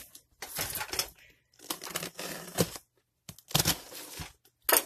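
Cardboard shipping box and its tape being cut and torn open by hand, in several short spells of scraping, crackling and tearing with clicks.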